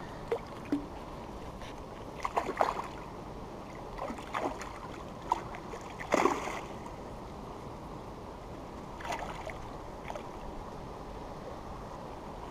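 A hooked fish splashing at the surface of the water as it is played on the line: a string of short, irregular splashes, the loudest about six seconds in, over a steady background hiss.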